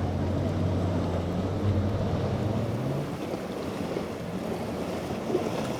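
A boat's engine running with a low, steady drone that fades away about three seconds in, over the wash of waves and wind buffeting the microphone.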